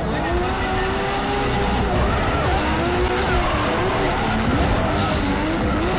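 Nissan Skyline R32 drift car with an RB25 turbo engine sliding through a drift: the engine revs up and down over the screech of its rear tyres as they spin and smoke.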